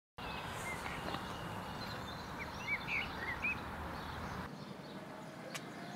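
Outdoor ambience starting suddenly: a steady background of outdoor noise with a handful of short bird chirps about two and a half to three and a half seconds in. The low rumble in the background drops away abruptly about four and a half seconds in.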